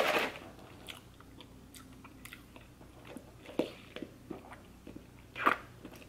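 Close-up mouth sounds of sipping an iced drink through a straw: a handful of short swallows and lip smacks, the clearest about halfway through and near the end.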